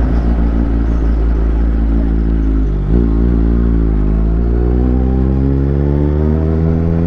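Kawasaki Z800's inline-four engine running on the move. The revs hold low and steady, dip briefly about three seconds in, then climb smoothly as the bike accelerates.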